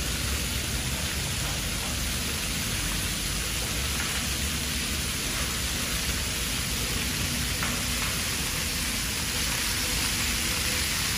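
Water jets of a splash-pad fountain spraying and splashing down onto paving, a steady hiss over a low rumble.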